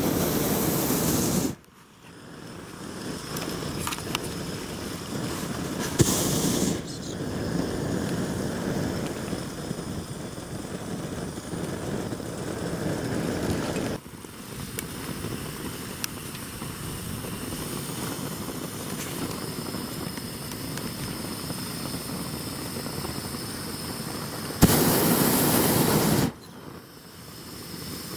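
Hot air balloon's twin propane burner firing in three short blasts: one of about a second and a half at the very beginning, a shorter one around six seconds in, and one of nearly two seconds near the end, each starting and stopping abruptly. The blasts heat the air in the envelope; between them a quieter, steady rushing noise continues.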